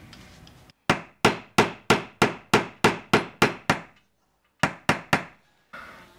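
Small hammer tapping on the workbench, about ten quick strikes at a little over three a second, each with a short ring, then a brief pause and three more taps.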